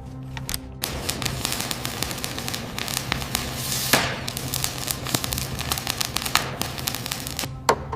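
Loud hissing, crackling blast of noise, full of sharp clicks, starting about a second in and cutting off near the end.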